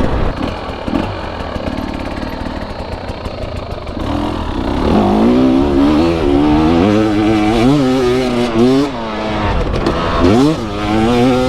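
KTM 300 EXC two-stroke dirt bike engine under way. Its note is fairly steady for the first few seconds, then revs up and down repeatedly as the bike is ridden along the trail.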